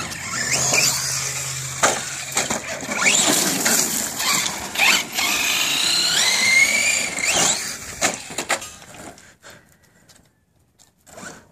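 DHK Zombie 8E 4WD RC truggy's brushless electric motor whining, its pitch rising and falling again and again as the throttle is worked, with tyres scrabbling over gravel and concrete. It dies away about nine seconds in.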